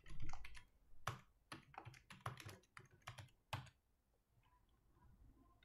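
Typing on a computer keyboard: a quick run of key clicks that stops about two-thirds of the way through.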